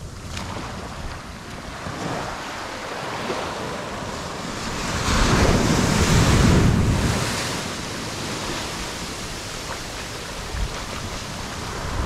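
Small waves washing onto a sandy beach, with wind buffeting the microphone. A louder surge of rushing noise builds about five seconds in and fades away again after about seven and a half seconds.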